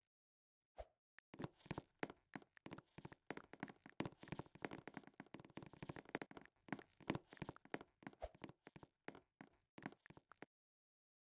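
A dense run of quick, irregular taps and knocks, starting about a second in and stopping shortly before the end.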